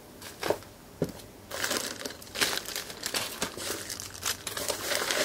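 Two light knocks, then plastic bubble wrap and zip bags crinkling and crackling continuously as packed parts are handled.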